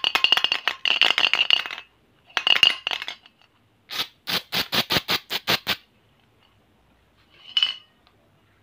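Hard plastic toys and wrapped candies clattering and clinking as they are handled: two spells of rapid rattling, then about ten quick, evenly spaced clicks, and one short rattle near the end.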